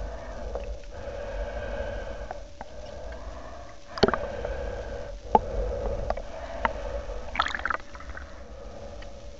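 Muffled underwater sound through a submerged camera during a snorkel swim: a steady low hum of water, with scattered sharp clicks and knocks, the loudest about four seconds in, and a brief gurgle a little after seven seconds.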